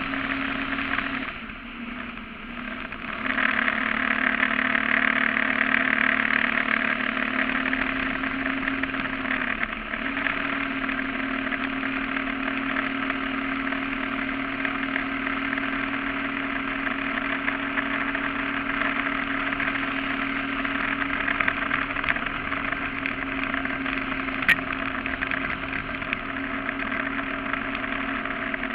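Surface-drive mud motor pushing a flat-bottom duck boat at speed: a steady engine drone mixed with rushing water and hull noise. The throttle eases off about a second in and comes back up a couple of seconds later, and there is a brief dip near ten seconds.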